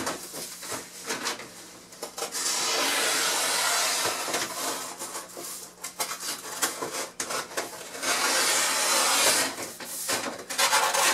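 A sheet of floor underlayment being pushed and slid into place against the floor and wall, rustling and scraping in two longer stretches with scattered light knocks and taps between them.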